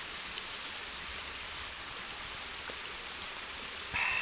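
Steady sizzling hiss of food frying in a pan on a camp stove, with a few faint crackles from the wood fire. A short metallic ring near the end.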